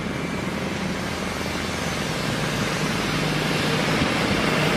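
Diesel railcar running along the track, a steady engine hum under rumbling wheel and rail noise that grows gradually louder as it approaches.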